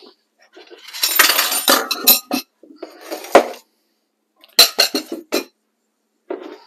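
Dishes and metal utensils clattering and knocking together in two rattling spells, then several sharp clinks in quick succession about four and a half seconds in.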